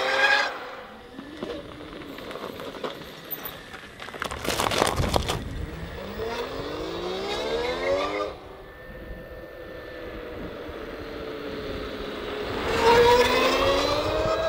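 Zero FX electric motorcycle's motor whining, rising in pitch several times as the bike accelerates, with a steadier, slowly falling whine in between. A brief rushing noise about five seconds in.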